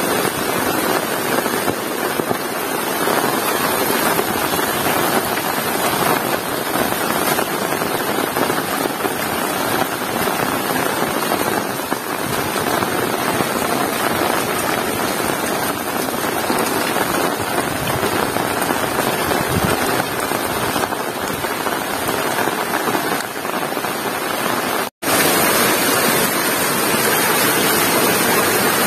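Heavy rain falling steadily, a dense, even hiss. It cuts out for a split second about 25 seconds in, then carries on slightly louder.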